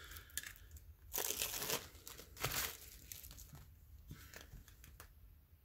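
Clear plastic seal on top of a Funko Soda can being peeled and torn with the fingers, crinkling in two main bursts, about a second in and again around two and a half seconds, then lighter rustles.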